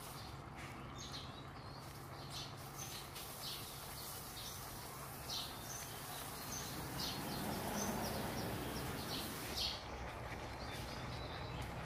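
Outdoor ambience: small birds chirping in short, repeated high calls over a steady low hum.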